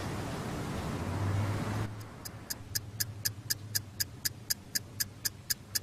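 A steady hiss that cuts off about two seconds in, then a clock ticking evenly, about four sharp ticks a second.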